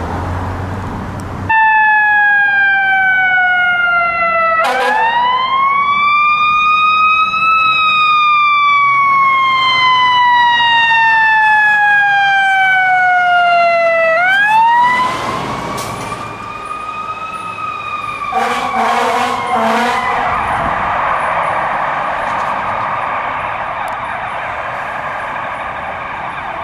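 Fire truck siren wailing in slow sweeps: a slow falling tone, a quicker rise, a long slow fall, then one more rise that fades. Short blasts of the truck's air horn come about two-thirds of the way through, followed by engine and traffic noise as the tower ladder truck drives off.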